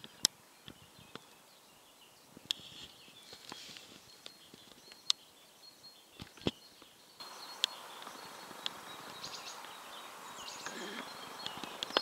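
Outdoor nature ambience: a quiet background with scattered sharp clicks and faint high bird chirps. About seven seconds in, the background steps up to a louder hiss with more frequent chirping.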